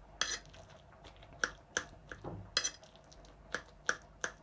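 Irregular taps and clicks of a kitchen utensil against a dish as soft roasted eggplant is mashed and chopped fine, two of the strikes ringing briefly like metal on a plate.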